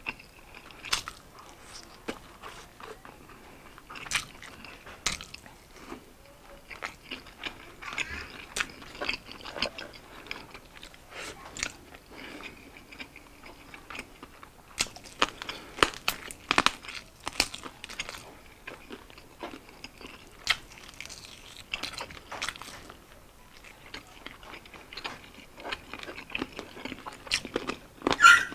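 Close-up sounds of eating fried chicken wings by hand: bites and chewing, with sharp clicks scattered throughout, the loudest cluster near the end.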